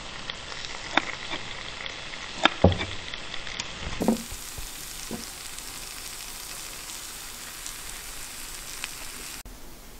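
Steady frying sizzle, with a few sharp clicks of tongs and utensils against a plate in the first half.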